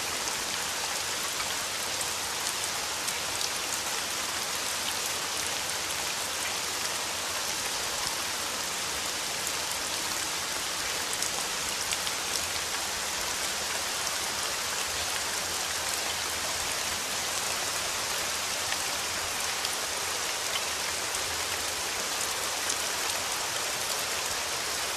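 Heavy rain falling, a steady dense hiss flecked with the taps of individual drops.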